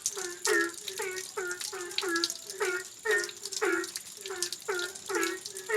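Steady rain with an animal calling in a fast, even series of short falling croaks, about two to three calls a second.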